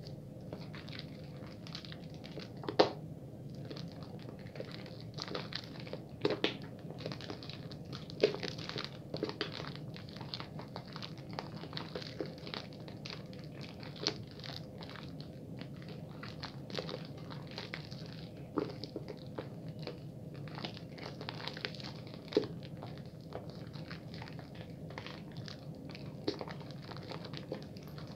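Bar soap being lathered between wet hands: a dense, irregular run of small wet clicks and crackles from the foam, with a few louder sharp smacks scattered through.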